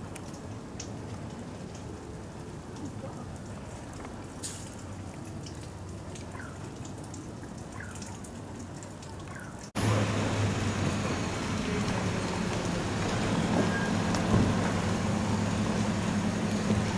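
Outdoor ambience: a steady hiss with a few faint short chirps, then after an abrupt cut about ten seconds in, louder city street traffic noise with a steady low engine hum.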